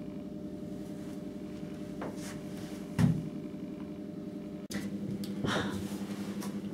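Indoor room tone with a steady low hum, and a single dull thump about three seconds in.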